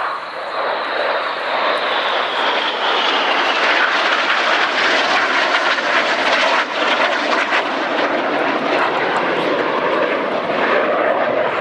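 Several BAE Hawk T1 jets flying past, their Rolls-Royce Adour turbofans making a steady jet roar that swells over the first few seconds, with a high whine falling slowly in pitch over the first three seconds.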